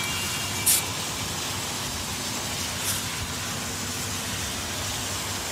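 Steady outdoor background hiss with no music, broken by two brief high ticks, one under a second in and one about two seconds later.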